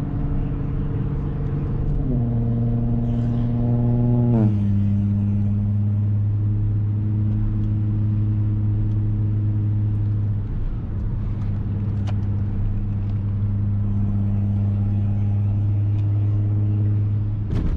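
Audi S4's supercharged 3.0-litre V6 with an AWE Touring exhaust, driving under light throttle. Its note drops in pitch twice, about two and four and a half seconds in, as the gearbox shifts up, then holds a steady low drone while cruising.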